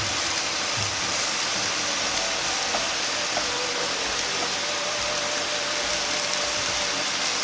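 Carrot, ginger and bamboo shoot sizzling in oil in a frying pan over low heat, a steady even hiss. The vegetables are searing on their surfaces rather than being tossed.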